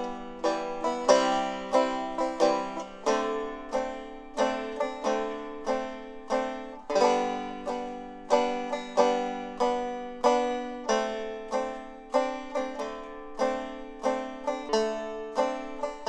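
Background music: a plucked string instrument picking a steady run of notes, each struck and quickly fading.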